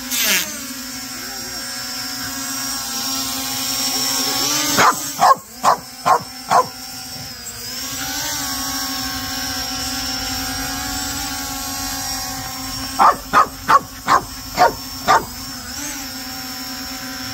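A small quadcopter drone hovers with a steady whining hum of its propellers. A dog barks at it in two short runs of quick barks: about five near five seconds in, and about six more around thirteen to fifteen seconds in.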